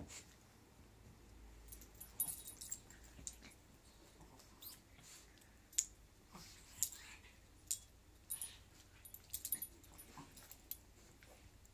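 A Jack Russell terrier and a pug play-fighting, with short, sharp sounds of mouthing and scuffling scattered throughout, some coming in quick clusters.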